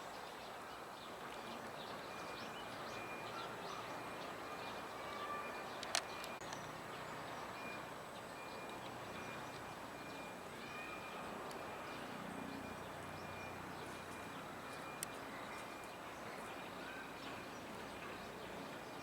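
Quiet outdoor ambience with scattered short, thin bird chirps from small birds, and a sharp click about six seconds in.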